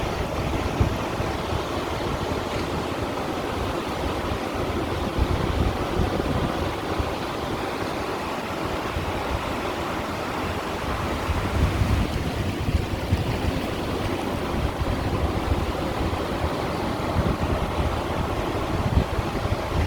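Sea water washing against and hitting shoreline stones in a steady, continuous wash, under a low rumble that swells now and then.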